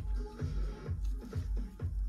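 Background electronic dance music with a steady thumping beat, about two beats a second.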